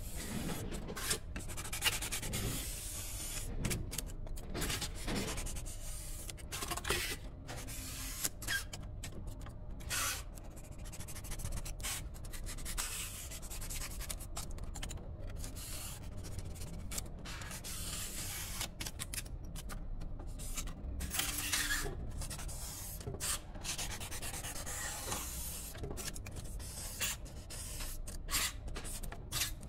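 Snap-off utility knife blade cutting and scraping through expanded polystyrene (styrofoam) in many short, irregular strokes.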